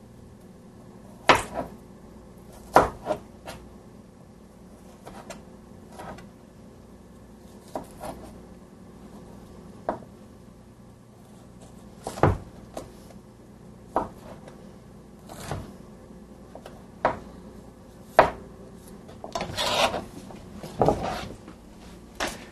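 Chef's knife cutting the skin off a piece of fresh ginger on a cutting board: single sharp taps and scrapes of the blade every second or two, with a quicker run of strokes near the end.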